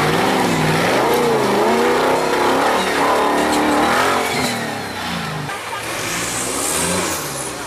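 Off-road race buggy's engine revving hard under load on a steep climb, its pitch swinging up and down about once a second. About five seconds in it drops to a quieter, steadier engine sound.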